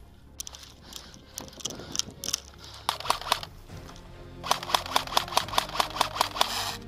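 Airsoft electric rifle (G36-type) firing: a few shots about three seconds in, then a rapid, even string of about six shots a second that stops just before the end.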